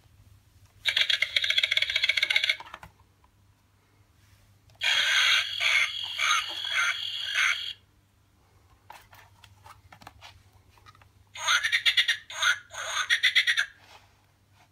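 A children's press-button sound book's small speaker plays recorded pond-animal calls in three bursts of two to three seconds each. The last burst is a frog croaking.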